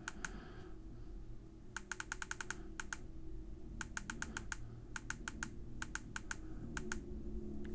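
Rapid button clicks from a Basspal Bluetooth shower speaker being pressed over and over to step its clock setting. They come in about six quick runs of several clicks each, starting about two seconds in.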